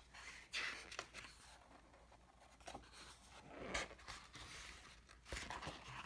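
Pages of a picture book being handled and turned: a few soft paper rustles and slides, the strongest about half a second in and about four seconds in.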